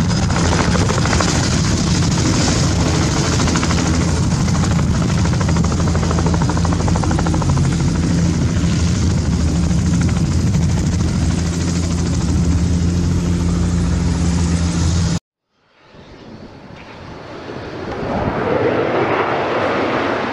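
Bell 206 JetRanger's two-bladed rotor and Allison 250 turboshaft running as the helicopter comes down from a low hover and sits on its skids: a steady rotor beat with a faint high turbine whine that sinks slightly in pitch. About 15 seconds in it cuts off suddenly, and after a short gap a whooshing swell rises and fades.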